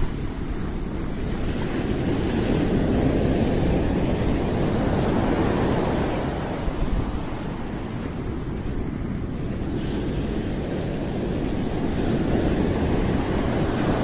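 A steady rushing noise that swells and eases gently, with no clear pitch or rhythm.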